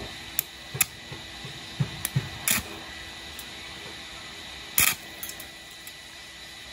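Stick-welding arc on thin stainless sheet, struck by scratching an electrode with part of its flux coating stripped off: it catches only in short crackling bursts, about five of them, the loudest near the end, with a faint steady high whine underneath.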